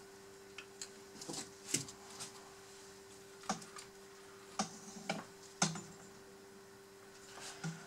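Scattered small clicks and taps of hands handling a soldering iron, wires and small parts on a workbench, about a dozen in all, the sharpest about two seconds in and near the middle. A faint steady hum runs underneath.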